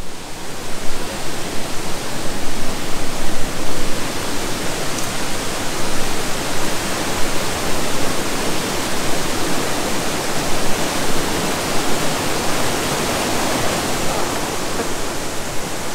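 Steady, loud rush of falling water from the cascades at Diyaluma Falls.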